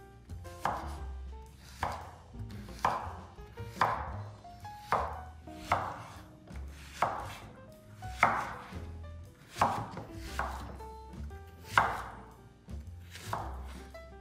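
Knife chopping food on a cutting board, about a dozen unhurried cuts roughly a second apart.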